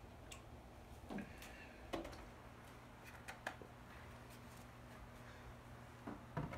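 Quiet kitchen handling sounds: the last of the milk trickling from a plastic jug into a glass measuring cup, then a few light knocks and clicks, the loudest about two seconds in, as the jug is handled and set down on the countertop. A low steady hum runs underneath.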